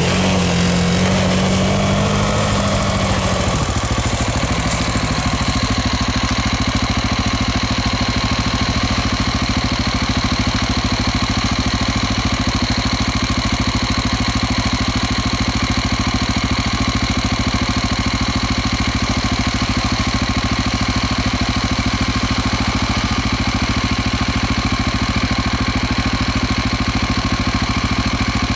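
Motorcycle engine running, its pitch rising and falling briefly in the first few seconds, then idling steadily.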